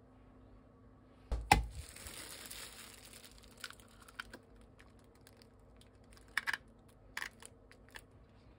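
A sharp knock about a second and a half in, then the crinkling rustle of clear plastic disposable gloves, and a few small cracks and clicks as an eggshell is pulled apart by hand over a paper cup.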